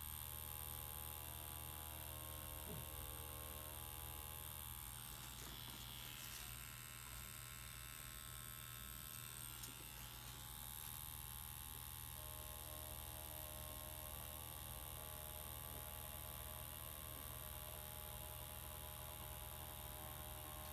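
Tattoo machine running with a faint steady buzz as it lines a stencil on practice skin; the buzz thins out for a few seconds in the middle.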